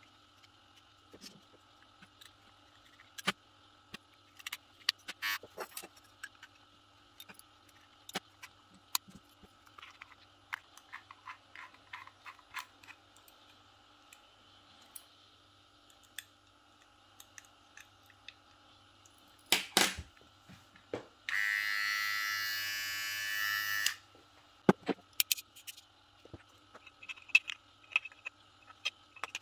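Plastic and metal parts of a partly disassembled cordless hair clipper clicking and knocking as they are handled and screwed together with a small screwdriver. About 21 seconds in, the clipper's small electric motor is switched on and buzzes for about two and a half seconds, then stops.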